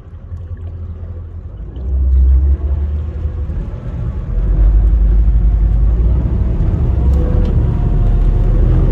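Mercury 300 hp V8 outboard motor running, a deep steady rumble that steps up in loudness about two seconds in and again about halfway through as it takes more throttle.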